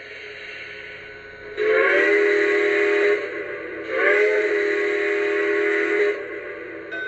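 Steam-whistle sound effect from a Lionel O scale Pennsylvania Railroad M1a locomotive's onboard sound system: two long chime-whistle blasts, each bending up slightly at the start, over a steam hiss that builds in the first second or so. Two long blasts is the railroad signal to release brakes and proceed.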